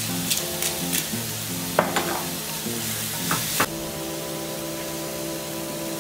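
Swiss chard sizzling in a cast iron skillet as a wooden spoon stirs it, with a few sharp knocks of the spoon against the pan. The sizzle drops suddenly about two-thirds of the way through, leaving a quieter hiss.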